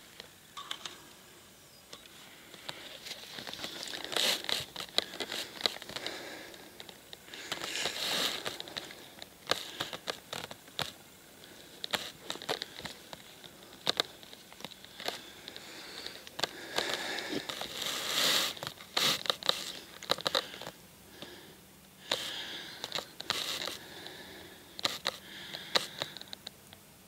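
Close rustling and crinkling handling noise, studded with many small sharp clicks, coming in irregular bursts.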